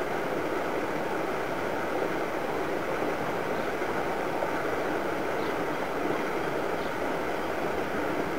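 Steady outdoor background rush at an even level, with a few faint, short high chirps from small birds scattered through the middle and near the end.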